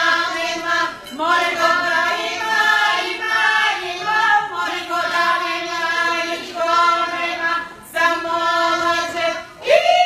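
A group of four women singing a Bulgarian folk song together, unaccompanied, in long held phrases with short breaks for breath. The singing stops just before the end.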